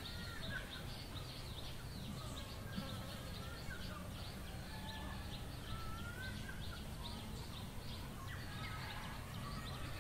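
Birds chirping and calling: a dense run of short, high chirps with a few whistled, gliding notes among them, over a steady low background hum.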